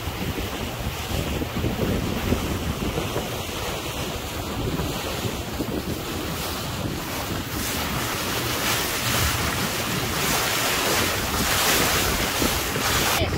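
Wind buffeting the microphone over the wash of sea waves against a boat, growing stronger and hissier in the second half.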